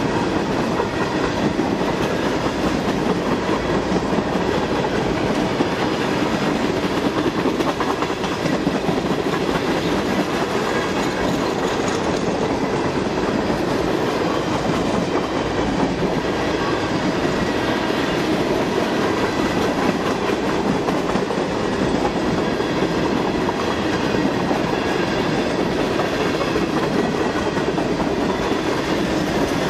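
Freight train tank cars rolling past at speed close by: steady, loud noise of steel wheels running on the rails, with a wheel clatter.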